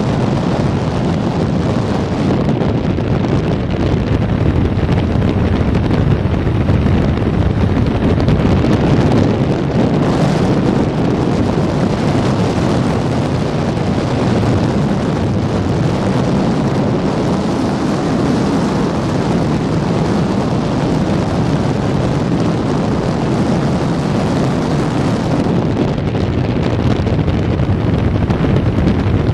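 Steady wind noise on a helmet-mounted microphone while riding a 1985 Honda CB650SC Nighthawk motorcycle, with its inline-four engine running underneath.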